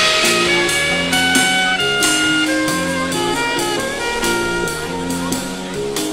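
Small jazz band improvising live: saxophone and flute playing melodic lines over a drum kit keeping a steady beat.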